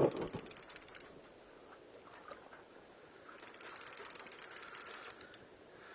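Fishing reel's drag clicking rapidly as a hooked blue shark runs and pulls line off, in two spells: through the first second, and again for about two seconds midway.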